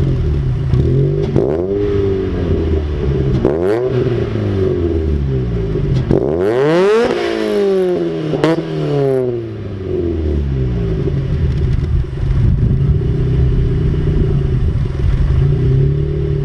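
Mazda Miata NB's four-cylinder engine running through an M2 Motorsport exhaust with its silencer removed: idling, with several quick revs, the biggest about halfway through, then settling back to a steady idle.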